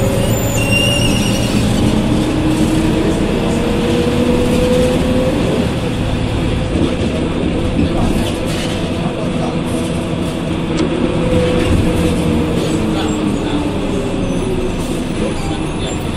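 Ikarus 280 articulated bus under way, heard from inside the passenger cabin: Rába D10 diesel engine, ZF 4HP 500 automatic gearbox and road noise running steadily. A whine rises in pitch, falls back, and rises again about two-thirds of the way through as the bus changes speed.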